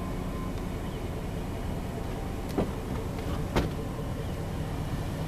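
Vehicle driving slowly over a dirt track: a steady low engine and rolling rumble, with two sharp knocks about a second apart midway.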